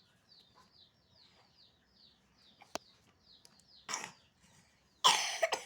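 A chick peeping steadily: short, high, falling cheeps about four a second. A loud, harsh burst cuts in near the end.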